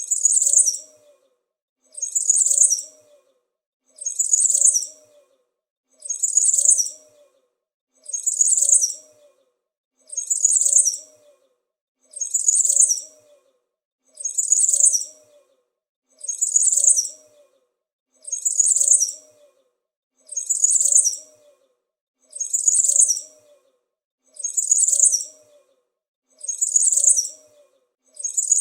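A small bird's high-pitched chirping, one short burst of chirps about every two seconds, repeating identically as a looped sample.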